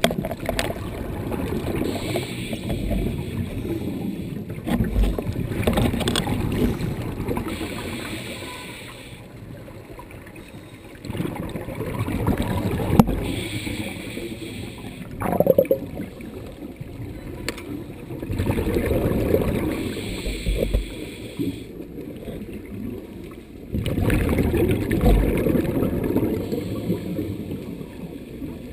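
Scuba regulator breathing heard underwater: long bursts of exhaled bubbles rumbling and gurgling, four of them, a few seconds each with quieter pauses between.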